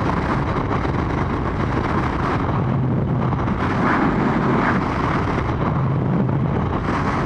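Motorcycle cruising at motorway speed: a steady engine drone under heavy wind noise buffeting the microphone.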